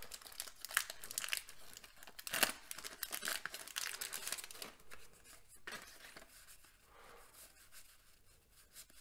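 Wax paper wrapper of a 1989 Donruss baseball card pack being torn open and crinkled, with sharp tearing and rustling over the first few seconds that dies down to faint rustling in the second half.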